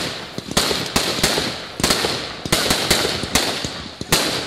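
Aerial fireworks going off in quick succession: sharp bangs about two to three a second over a continuous hiss.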